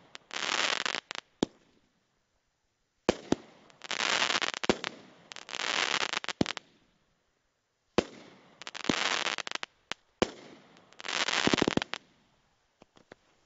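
Consumer fireworks cake (Alamo Fireworks #0890 The Bandit) firing its shots: sharp bangs, each followed by about a second of dense crackling as the stars burst, about five times over, with a few small pops near the end.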